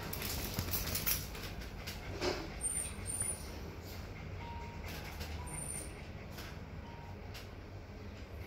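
Steady low background rumble with a few light clicks and rustles, mostly in the first couple of seconds, and brief thin high squeaks about three and five and a half seconds in.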